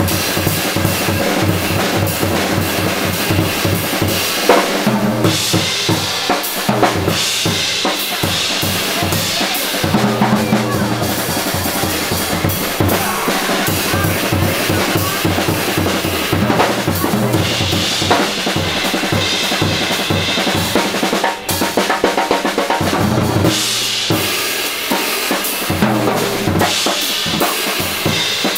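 Live jazz quintet playing, the drum kit loud and busy with steady cymbal strokes, low bass notes underneath.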